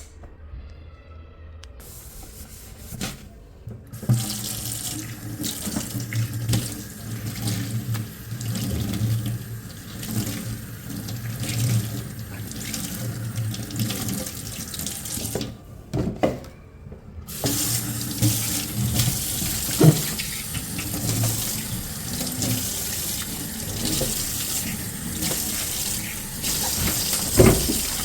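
Tap running into a sink in a steady rush of water. It stops for a moment about two-thirds of the way through, then runs again, with a few knocks now and then.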